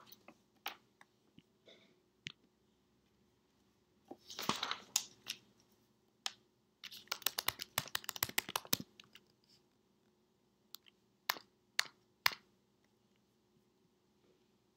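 Quiet handling noises from hands at a table: a short paper rustle about four seconds in, a rapid run of clicks and taps from about seven to nine seconds, and a few scattered single clicks. These fit a worksheet being set down and fingers working the recording device's keys to end the recording.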